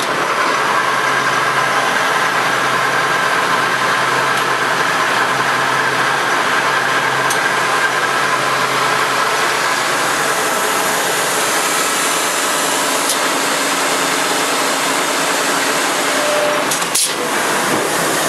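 Acme-Gridley RA6 six-spindle automatic screw machine running under power: a loud, steady mechanical drone with a faint held whine, and a brief click about seventeen seconds in.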